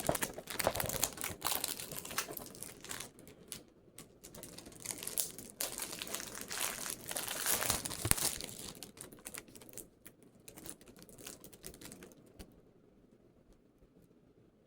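Plastic packaging crinkling and tearing as it is cut open with a knife: irregular crackles and rips that die down about twelve seconds in.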